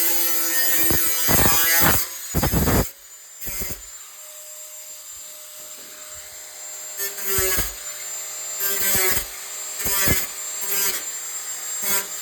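Black+Decker angle grinder running with a steady motor whine. It cuts or grinds hard for under a second near the start, then runs more quietly with short bursts of grinding against the work every second or two.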